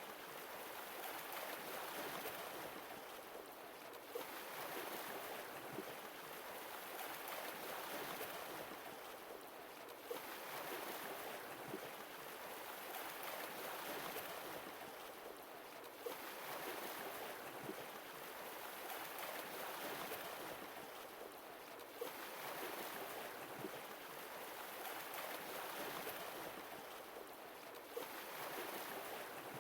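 Sea waves washing ashore and drawing back in a steady cycle, a new wave about every six seconds, each arriving with a brief sharp splash.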